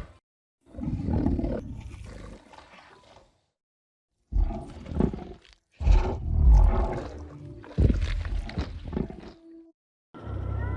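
Film creature sound effects of Kong, the giant ape: several separate roars, each one to a few seconds long and fading out, with short silences between them.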